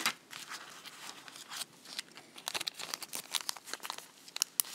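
Small clear plastic bead bag crinkling as fingers handle it: a run of short crackles and ticks, busier in the second half.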